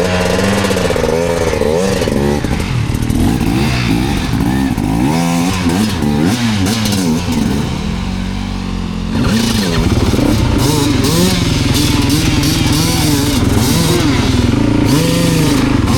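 Dirt bike engine revving up and down repeatedly as it is ridden, with a short easing off and then a louder, steadier run from about nine seconds in.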